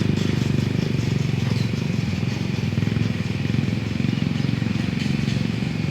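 Engine of a two-wheel hand tractor (plough machine) running steadily under way, a fast, even stream of firing pulses.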